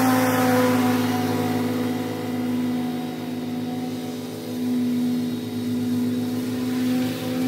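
Commercial lawn mower's engine running steadily while mowing, moving past and away from the microphone; it eases off a little partway through, then comes back up.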